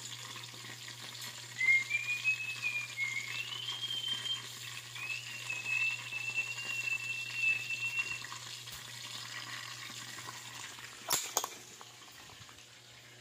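Chicken necks deep-frying in oil in a wok, sizzling steadily. A thin high whistle wavers in pitch from about two seconds in until about eight seconds in, and a sharp knock comes near the end, after which the sizzle fades.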